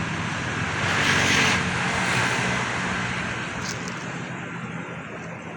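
A motor vehicle passing: a low engine hum under a rush of noise that swells about a second in and then slowly fades away.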